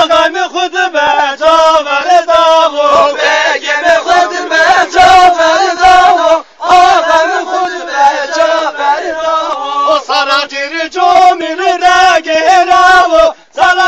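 A group of voices singing a Zaza halay folk song in unison, in a chanting style. The song breaks off briefly about halfway through and again near the end.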